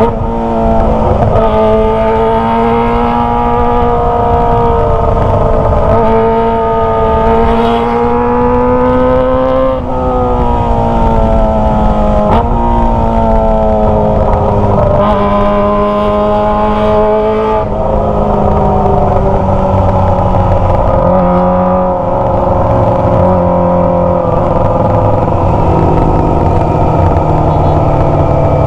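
Kawasaki ZX25R's 250 cc inline-four running through a Toce aftermarket exhaust at high revs while being ridden. Its pitch climbs and falls several times as it is revved and shifted, dropping sharply about ten seconds in.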